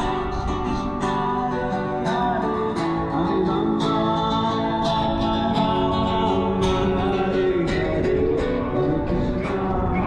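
Acoustic guitar music, plucked and strummed, with a voice singing at times.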